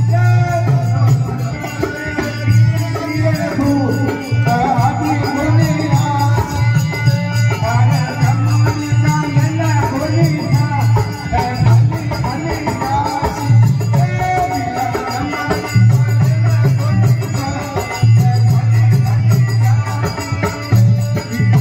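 A devotional bhajan performance: a voice singing over folk percussion with drums and rattling, jingling beats.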